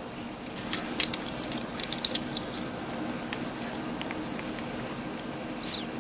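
A pet parrot's beak and feet clicking and tapping on its toys: scattered light clicks, thickest in the first two seconds. A short high chirp comes about four and a half seconds in, and a brief high squeak near the end.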